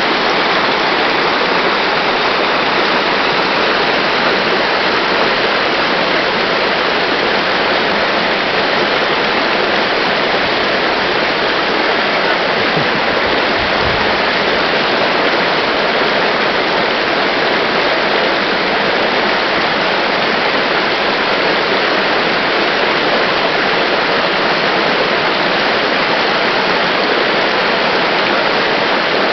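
Loud, steady rush of flowing water, like a fast stream or waterfall close to the microphone.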